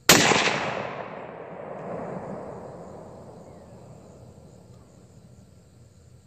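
A single shot from an SKS semi-automatic rifle in 7.62×39mm, a sharp crack just after the start, followed by a long rolling echo that swells again about two seconds in and fades away over several seconds.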